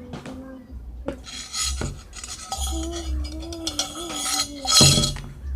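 A utensil scraping and clinking against a bowl while stirring slime, in two spells, the second and loudest near the end.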